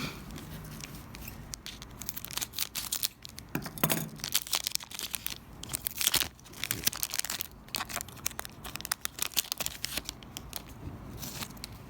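A trading-card pack wrapper being torn open and handled: a run of crinkling and tearing crackles.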